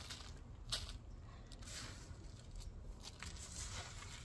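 Rustling, crunching and scraping as a fabric grow bag and loose potting soil are handled, in irregular bursts, with a sharp click just under a second in.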